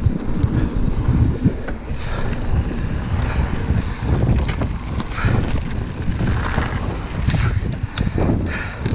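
Wind buffeting the camera microphone as a mountain bike rides down a dirt trail, with tyre noise and scattered clicks and knocks from the bike over the ground.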